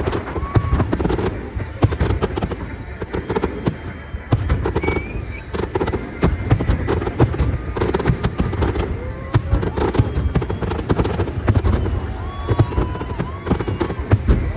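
Aerial fireworks bursting in quick succession, with repeated sharp bangs and crackles, over accompanying music.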